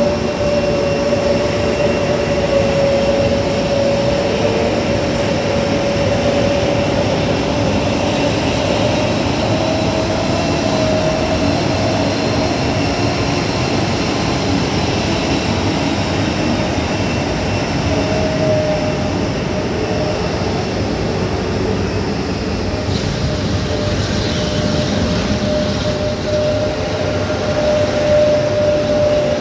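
Jet airliner's turbofan engines running at taxi power: a steady roar with a wavering whine on top.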